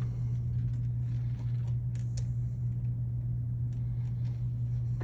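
Steady low hum, with a few faint clicks and rustles as wires with ring terminals are pushed through behind the golf car's motor controller.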